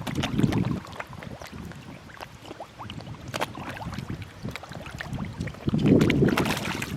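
Many koi feeding at the pond surface, with a dense patter of small splashes, slurps and pops as they take floating food. Two louder low rushing swells come at the start and about six seconds in.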